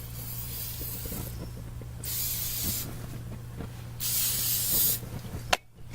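Aerosol can of non-stick cooking spray hissing in bursts: a fainter spray at first, then two stronger sprays of about a second each, coating the cooking surface so the potatoes won't stick.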